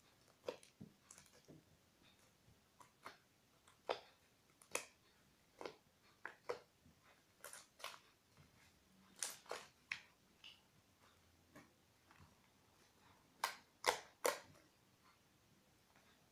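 Fluffy slime made of shaving foam, white glue and borax being kneaded and pressed by hand, giving faint, irregular little clicks and pops, a few louder ones near the end.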